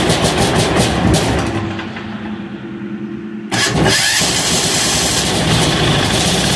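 186FA single-cylinder diesel engine, fuelled with 10W-30 motor oil, restarting: it fires and runs unevenly and quieter for a moment, then jumps abruptly to a loud, steady run about three and a half seconds in.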